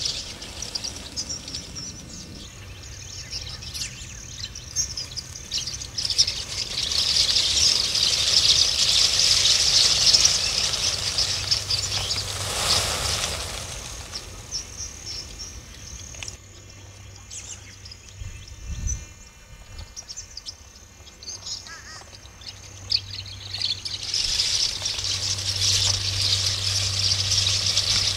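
A large flock of tree swallows twittering together in a dense chorus of high chirps that swells and fades in waves, loudest in the first half and again near the end. A brief rush of noise comes about halfway through, a dull thump follows a few seconds later, and a low steady hum sits underneath, strongest near the end.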